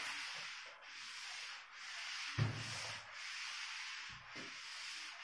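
Board duster rubbed back and forth over a whiteboard, erasing writing in repeated swipes about once a second, with a dull knock about two and a half seconds in.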